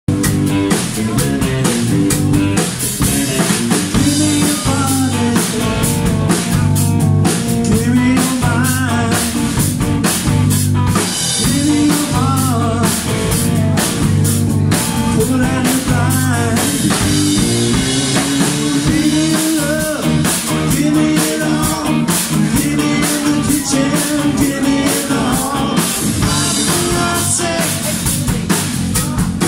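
A live rock band playing: electric guitar, bass guitar and drum kit with a steady beat, and a singing voice.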